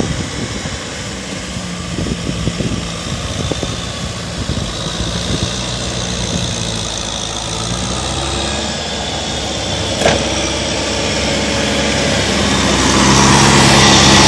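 Kubota M6040SU tractor's four-cylinder diesel engine running steadily while it drags a rotary tiller through wet paddy mud, growing louder near the end as the tractor comes close. A single sharp knock is heard about two-thirds of the way through.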